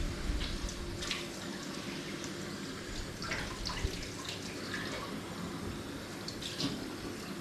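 Rendered pork fat sizzling and crackling in the hot roasting tray around freshly oven-cooked pork ribs, with irregular pops over a steady low hum.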